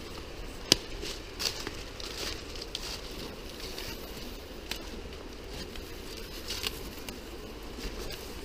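Footsteps crunching and rustling through dry leaf litter and undergrowth, with scattered twig cracks; one sharp crack a little under a second in is the loudest.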